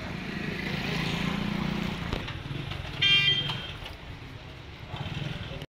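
Street traffic: a motor vehicle's engine running steadily, then a short vehicle horn toot about three seconds in, the loudest sound here.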